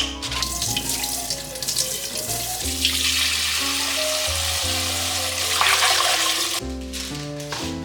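Water running from a tap into a kitchen sink, over background music; the water cuts off suddenly about six and a half seconds in.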